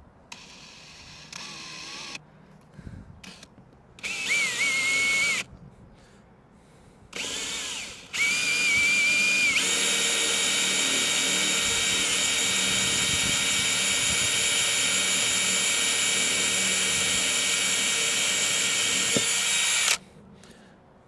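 Cordless drill boring a 4 mm hole through a yacht's fibreglass deck: a few short runs of the motor, then one long steady run that cuts off near the end.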